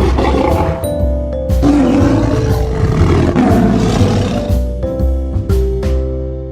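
Big cat roaring over background music. The music fades out near the end.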